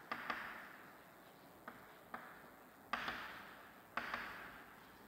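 Chalk writing on a blackboard: a series of sharp taps as the chalk strikes the board, each trailed by a short scratchy hiss of the stroke.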